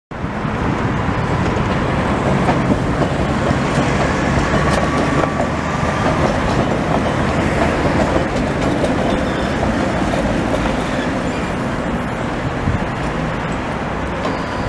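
Tatra T3 tram cars rolling past, steel wheels rumbling steadily on the rails with a few sharp clacks over joints and points, and a faint high whine of wheels on the curve about four to six seconds in.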